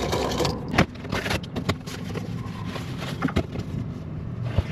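A deburring tool scrapes the inside of a freshly cut refrigerant line for about half a second. Then come a handful of sharp clicks and taps as tools and parts are handled, over a steady low hum.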